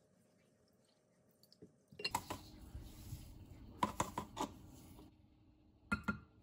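Kitchen handling sounds: a few sharp clinks of utensils against dishes over a faint continuous rustle of food being handled, after a couple of seconds of near quiet.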